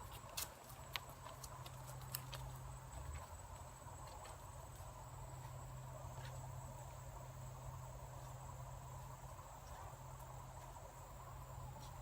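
Insects trilling steadily in a continuous high thin tone, with a few light clicks in the first two seconds.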